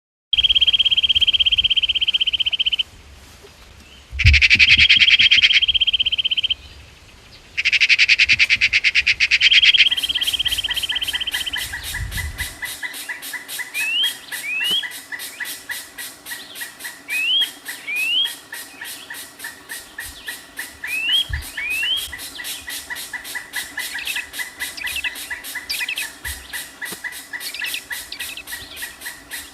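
Birds calling: a loud, rapid high trill in three bursts, then short rising whistled notes in pairs every few seconds over a steady fast pulsing chorus.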